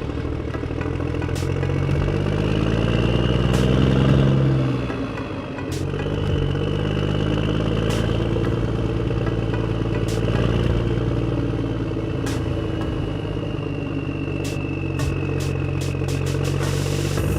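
An engine running steadily. It rises in pitch and gets louder about three to four seconds in, then drops back.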